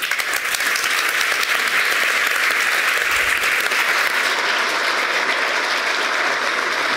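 Large audience applauding: dense, steady clapping that breaks out suddenly and holds at an even level.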